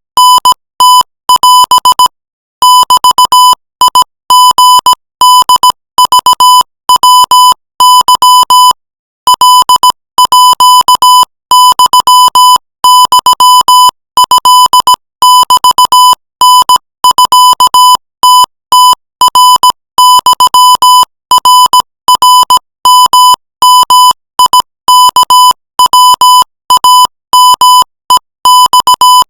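Machine-keyed Morse code at 20 words per minute: a steady, high beep switched on and off in short dots and longer dashes, with short gaps between letters and longer pauses between words, spelling out a Thai text.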